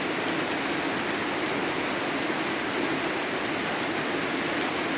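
Steady, unbroken rain falling, with faint individual drops ticking through it. The rain of a storm that has been pouring day and night without let-up.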